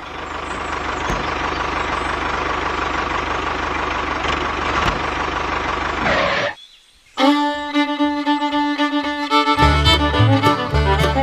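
Small motor of a toy tractor running with a steady whirr for about six seconds, then cutting off suddenly. After a brief pause, fiddle and guitar music with a steady beat comes in.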